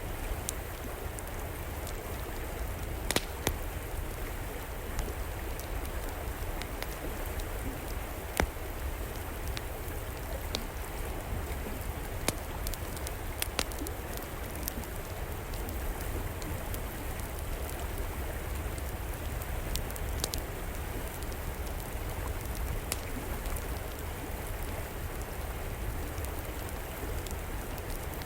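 River water flowing steadily, with a wood fire crackling over it in scattered sharp pops every few seconds.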